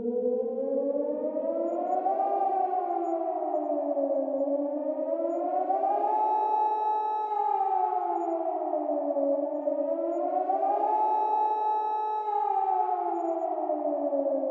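Civil defense nuclear-attack warning siren wailing, its pitch rising and falling in slow sweeps about three times and holding at the top for about a second on the later rises.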